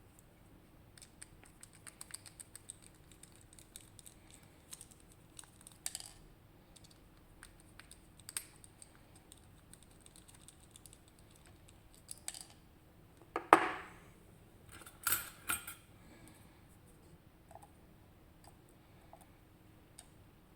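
Small metal clicks and scrapes of tools and parts as a RUKO Garant lock cylinder is taken apart. There is a louder knock about two-thirds of the way in and two more a couple of seconds later.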